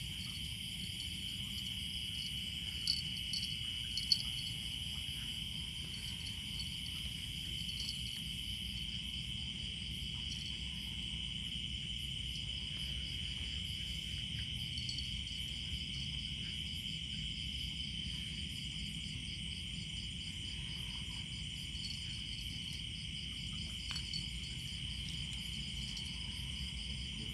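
Night insect chorus: a steady high trill with a faster pulsing chirp above it, over a low steady rush of noise. A couple of faint knocks sound about three and four seconds in.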